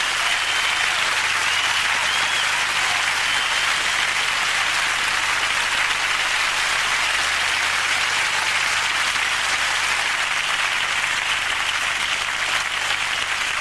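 A large audience applauding steadily, with a few short high whistles near the start.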